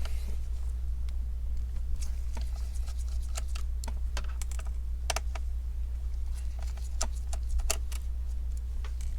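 Irregular small clicks and taps of a screwdriver and tiny screws on a laptop's plastic case, over a steady low hum.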